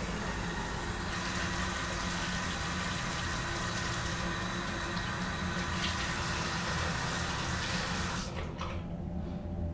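Bathroom sink faucet running, with water splashed from cupped hands onto a face. The tap shuts off suddenly about eight seconds in, leaving a low steady hum.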